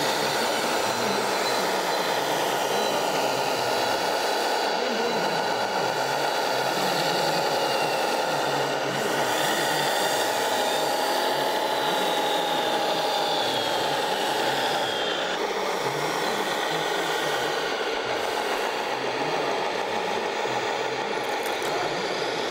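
Small electric motors and gearboxes of RC model trucks and machines whining, several at once, their pitch slowly rising and falling as they speed up and slow down, over a steady background noise.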